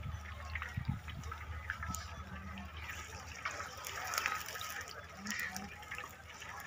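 Hot oil sizzling and lightly crackling in a large iron karahi as batter-coated chicken pakoras deep-fry, over a steady low hum.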